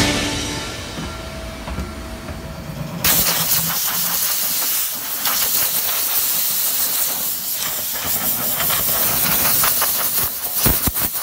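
A song fades out, then about three seconds in a steady, loud hiss cuts in abruptly and continues, with a couple of low bumps near the end.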